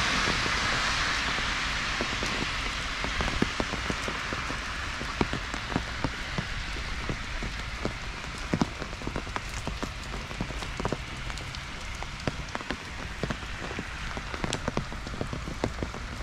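Heavy rain falling on a street, a steady hiss with sharp, irregular ticks of drops striking close by. A louder hiss fades away over the first couple of seconds.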